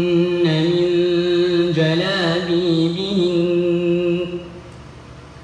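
A young man's voice reciting the Qur'an in a slow, melodic chant, holding long drawn-out notes, and breaking off about four seconds in.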